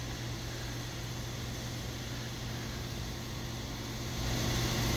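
Steady machine hum with an even hiss, getting louder about four seconds in.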